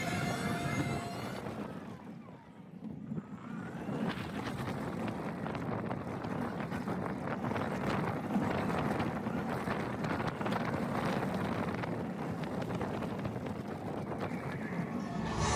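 Slinky Dog Dash roller coaster train running along its steel track: a steady rumble and rush of wind over the microphone, dipping briefly about two seconds in.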